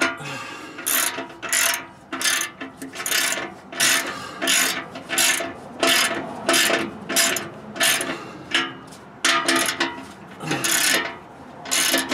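Socket ratchet tightening the U-bolt clamp nut on the muffler-to-tailpipe joint: quick ratcheting back strokes about twice a second, with a couple of short pauses.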